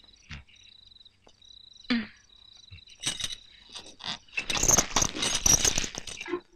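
Crickets chirping in a fast pulsing trill. From about three seconds in, a louder burst of rustling and clattering movement takes over.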